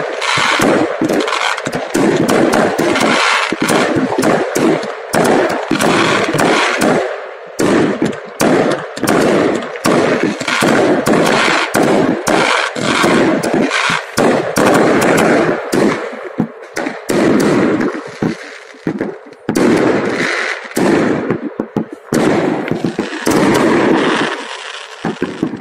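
Many fireworks going off at once: a continuous barrage of sharp bangs and crackles from aerial shells bursting, with hardly a pause.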